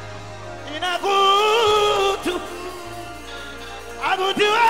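Live gospel worship music: a lead singer holding long notes with vibrato over a sustained low keyboard bass. One held note comes about a second in, and a second phrase rises into another long note near the end.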